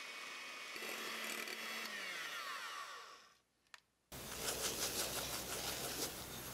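Electric hand mixer whisking egg whites at low speed in a glass bowl. About two seconds in its whir falls in pitch as the motor winds down and stops, followed by a click and a moment of quiet. About four seconds in, a louder mixer whir starts.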